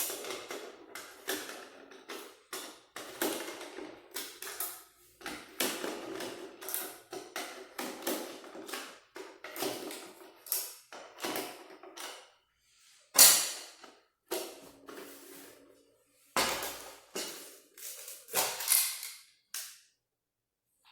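Irregular clicks, taps and knocks from hands handling and working on speaker parts, with short pauses between bursts.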